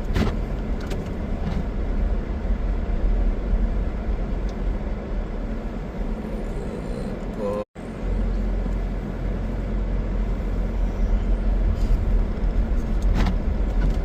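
Steady low road and engine rumble of a car driving, heard from inside the car. The sound cuts out completely for an instant a little past halfway, then resumes.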